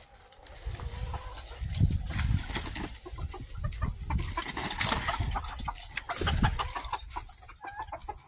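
Backyard chickens clucking in their coop, over a low rumble and scattered clicks close to the microphone.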